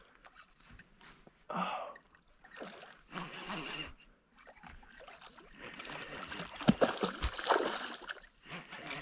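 Water splashing and handling noise as a hooked catfish is fought from a small boat, loudest a little past halfway, with a couple of sharp knocks against the boat.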